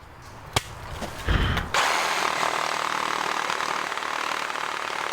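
Cordless reciprocating saw with a Diablo 12-inch carbide-toothed pruning blade cutting through a soaking-wet dead pine limb. After a click and a short thump, the steady cutting noise begins about two seconds in.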